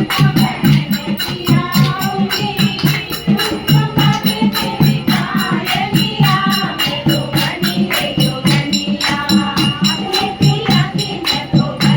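Kumaoni folk song playing: singing over a fast, steady beat with jingling percussion.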